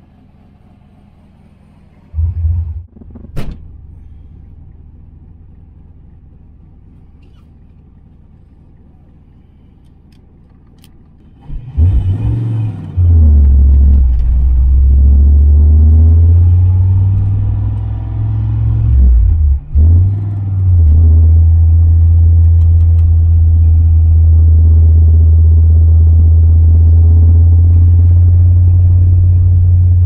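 Quiet at first, broken by a short thump and a sharp click a few seconds in. Then, about twelve seconds in, a turbocharged Fox-body Ford Mustang's engine and exhaust come in loud, heard from inside the cabin while driving. It is a steady low drone that dips and stutters briefly around twenty seconds.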